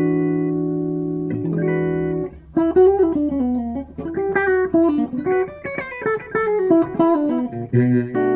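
Electric guitar, a Fender American Performer Stratocaster HSS on the second pickup-selector position (bridge humbucker with middle single-coil), playing a chord that rings for about two seconds, strummed again, then a quick single-note lick with bends.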